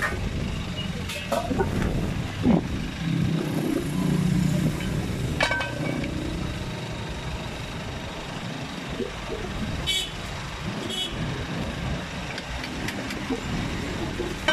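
Steady low rumble of road traffic, with a few sharp metallic clinks from a metal stew pot's lid and ladle, one of them ringing briefly about five seconds in and more near ten seconds.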